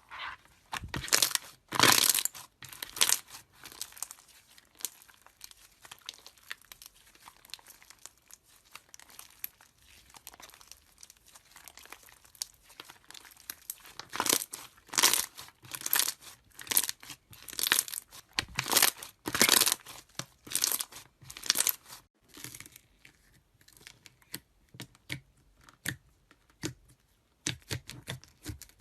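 Slime being squeezed and poked by hand, giving bursts of crackling, popping squelches. They come thickest near the start and again through the middle stretch, with quieter scattered pops between.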